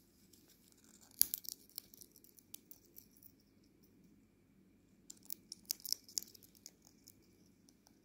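African grey parrot cracking sunflower seeds with its beak and rooting through the seeds and husks in a ceramic bowl. The sharp crunches and clicks come in two bursts, about a second in and again around five seconds in.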